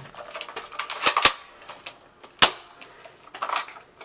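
Sharp plastic clicks and knocks from a spring airsoft gun being handled, with two close together about a second in and a loud one near the middle.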